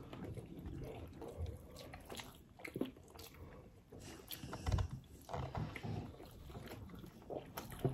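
Faint eating sounds as chicken is eaten by hand: chewing and smacking with scattered small clicks, and a soft knock a little past the middle.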